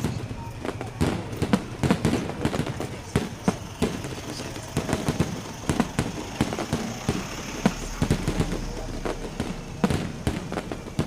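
Fireworks display: a rapid, irregular run of bangs and pops from exploding shells, several a second.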